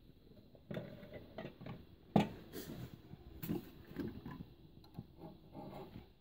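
Irregular knocks and clicks of a marble cladding slab being worked into place on steel stone clips, with one sharp, louder knock about two seconds in.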